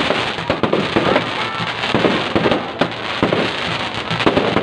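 Fireworks going off in quick irregular succession: sharp bangs and crackling, with a few short whistling tones among them.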